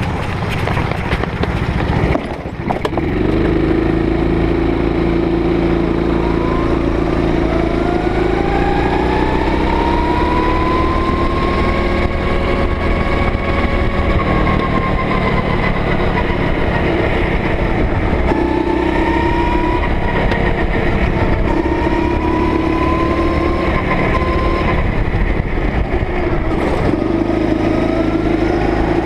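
Go-kart engine heard on board, running loud and close from about three seconds in, its pitch rising and falling over several seconds at a time as the throttle is opened and eased.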